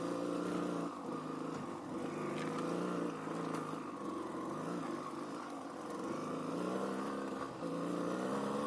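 Off-road motorcycle engine running while riding a trail, its revs rising and falling as the throttle changes.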